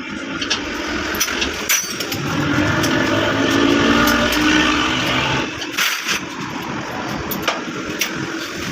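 An engine running with a steady hum that swells louder for about three seconds in the middle and then eases back, with scattered sharp clicks and knocks over it.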